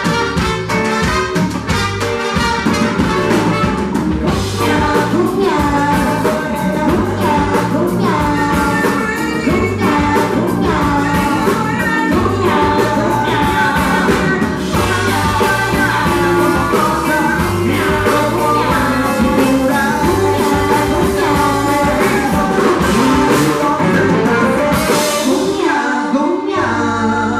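Live band playing an upbeat rock number with drum kit, bass, keyboards and trumpets, and a woman and a man singing over it. The bass and drums drop out briefly near the end before the band comes back in.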